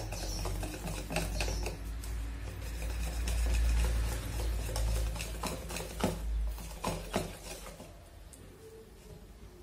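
Wire whisk beating cake batter in a bowl: steady stirring and scraping, with sharp clicks of the whisk against the bowl now and then, over a low rumble that swells in the middle. It gets quieter near the end.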